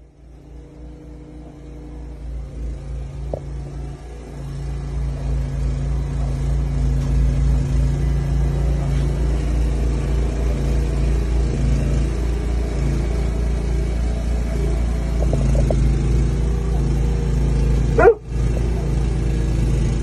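Snowblower engine running steadily, growing louder over the first few seconds and then holding. A dog gives a short bark near the end.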